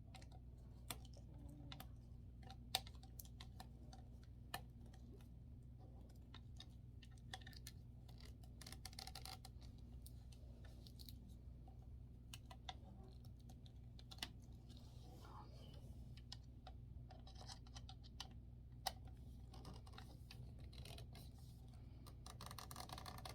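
Faint, scattered clicks and taps of wooden drying-rack parts being handled and fitted together, with a few sharper knocks, over a steady low hum.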